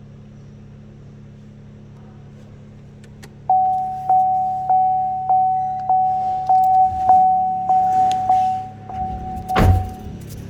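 A car's electronic warning chime dinging steadily, about one and a half dings a second for about six seconds, over a steady low hum. A single loud thump comes just before the chime stops.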